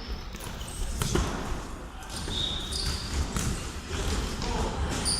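Mini-football match play: the ball being kicked and bouncing, as sharp knocks a second or two apart, with players' voices calling and a few short high squeaks.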